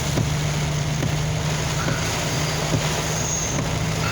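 Heavy rain and road spray hissing steadily around a moving vehicle, heard from inside the cab, with a constant low engine hum underneath.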